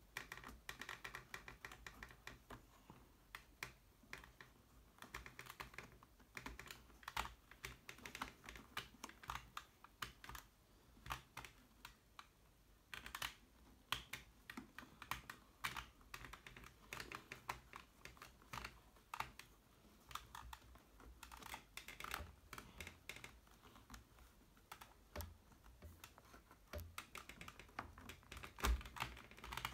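Hands working a plastic helmet-intercom mount and its cable on a motorcycle helmet shell: irregular small clicks, taps and rustles, with one louder knock near the end.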